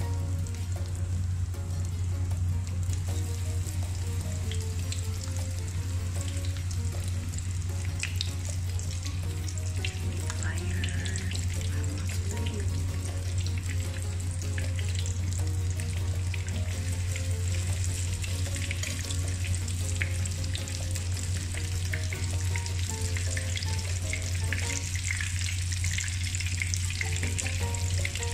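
Chip-crusted chicken pieces deep-frying in hot oil in a pan, a steady sizzle full of crackles and pops that grows denser in the second half as more pieces go in, over a steady low hum.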